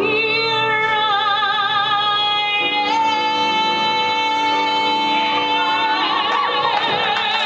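A woman's belted singing voice holding one long note on the word "here", with a vibrato that grows wider near the end.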